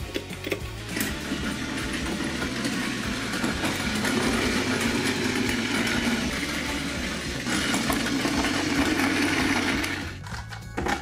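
Battery-powered Plarail toy shinkansen (the yellow Doctor Yellow inspection train) running on a wooden track: a steady small-motor whir and gear buzz with the plastic wheels rattling on the wood. It grows louder a few seconds in and dies away near the end.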